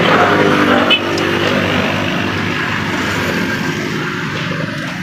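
A motor vehicle's engine running close by, steady and slowly fading, with a little talk in the first second.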